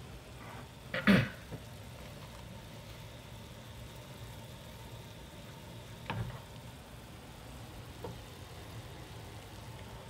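Spaghetti boiling in a saucepan of water on a gas burner, a steady bubbling hiss, stirred with a wooden spoon. A sharp knock about a second in and a softer one about six seconds in.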